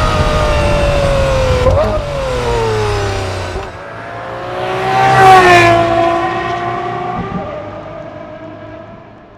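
Aston Martin sports car engines driving past. A falling engine note breaks briefly about two seconds in. A louder pass comes about five seconds in, its pitch dropping as it goes by, and then the sound fades away.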